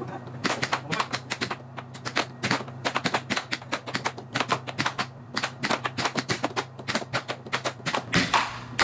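Air hockey puck clacking rapidly against plastic mallets and the table's rails in a fast rally, several hits a second, over a steady low hum.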